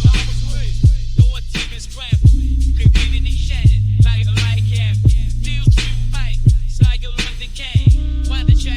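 Hip hop music: a deep bass line under a steady beat, with a voice rapping over it.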